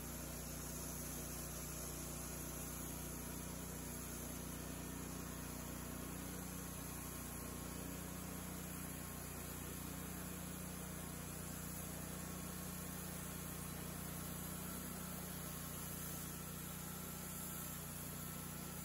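Wood-Mizer LT30 Hydraulic band sawmill running steadily, its engine humming at an even pitch as the head feeds the band blade through a black cherry log, sawing off a slab.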